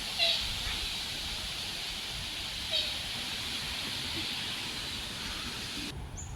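Outdoor nature ambience: a steady high hiss with a low rumble beneath it, and two short bird chirps, one at the start and one about three seconds in. The hiss cuts off abruptly near the end.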